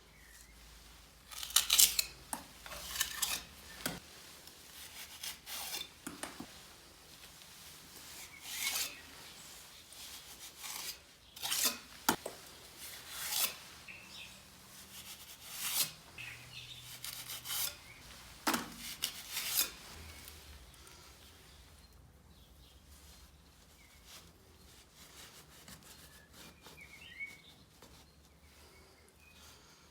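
Metal trowel scraping and clinking as mortar is worked, in irregular strokes that thin out about two-thirds of the way through.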